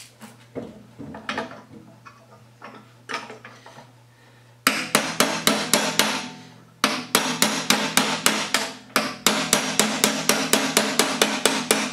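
Socket ratchet clicking in two long runs of quick, even clicks, about six a second, with a short break near the middle, as a nut on a steel mower deck is tightened. A few light knocks of metal parts being handled come before it.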